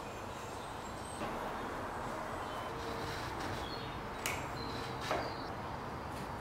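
Quiet workshop ambience with a steady hiss and a few faint high chirps, broken by three light wooden knocks, the sharpest about four and five seconds in, as a wooden marking gauge is handled against a scythe's old wooden handle.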